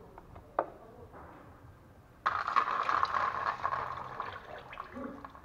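CVT fluid gushing and splashing out of the transmission valve body as the oil strainer is pulled off, starting suddenly a little over two seconds in and tapering off over about two seconds. A light click comes just before, about half a second in.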